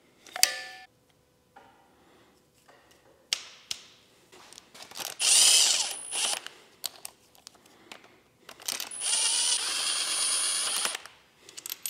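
Red cordless electric screwdriver running in two short bursts, about five seconds in and again near the end, spinning the cam cap bolts down into the cylinder head. Sharp clicks and clinks of the tool and metal parts come between the runs, with a loud clack near the start.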